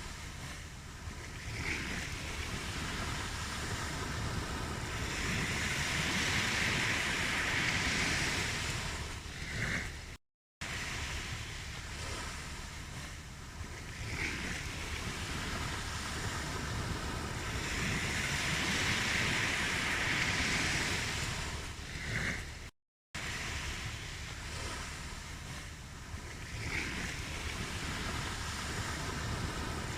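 Ocean surf breaking on a shore, swelling louder as each wave comes in about every twelve seconds. The sound cuts to silence for a moment twice, where the recording loops.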